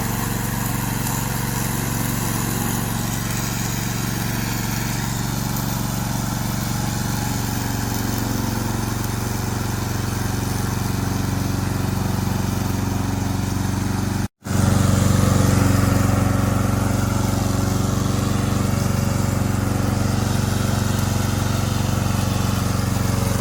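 Yamaha 7.5 hp petrol engine of a tracked remote-control lawn mower running steadily. The sound cuts off for a split second about fourteen seconds in, then carries on a little louder.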